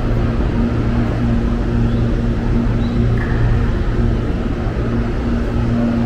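Steady low electrical hum and drone from a stationary CPTM electric multiple-unit train standing at the platform with its doors open, its onboard equipment running.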